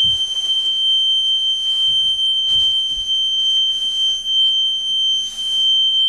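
Depth sounder's shallow-water alarm buzzing, a single steady high tone that does not let up: the alarm is going off because the hull is sitting on the bottom in the mud.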